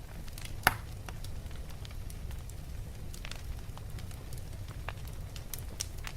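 Wood fire burning in a fireplace, crackling with scattered pops over a low steady rumble; one sharp pop stands out about two-thirds of a second in.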